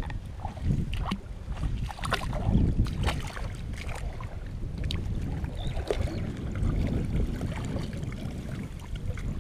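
Water sloshing and splashing around a person wading chest-deep through a pond, in many short irregular splashes, over an uneven low rumble of wind on the microphone.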